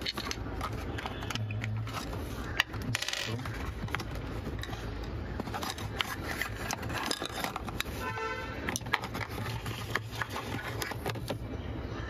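Cardboard box flaps and plastic helmet-holder parts being handled and taken out: rustling with scattered clicks and knocks, the sharpest about two and a half seconds in. A brief pitched tone sounds about eight seconds in, over a steady low hum.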